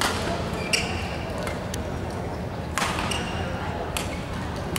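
Badminton rally: sharp racket hits on the shuttlecock about once a second, with short high squeaks of court shoes on the floor between them.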